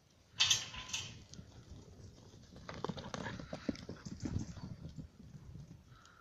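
Quick, irregular footfalls and thuds on dry, short pasture grass, with a brief hissing burst about half a second in.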